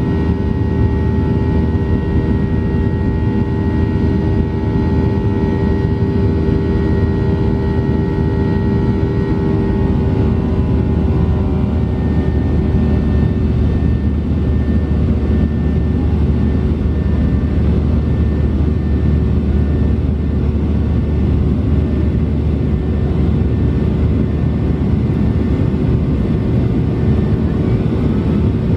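Boeing 737-800 climbing after takeoff, heard from the cabin: a loud, steady rumble with a whine of several engine tones. About ten seconds in, some of the higher tones slide down and fade.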